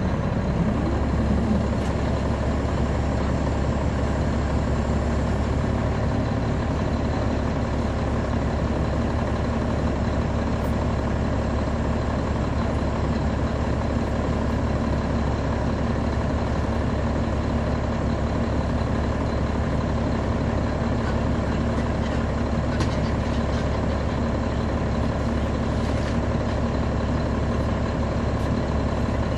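Caterpillar C13 ACERT diesel engine of a 2009 NABI 40-foot transit bus, heard from the rear seats inside the bus, running at a steady pitch.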